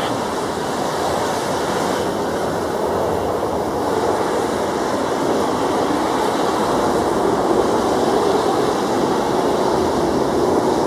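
Airbus A320 jet engines at takeoff power during the takeoff roll on a wet runway, with tyre spray in the mix: a steady rushing noise that slowly grows louder.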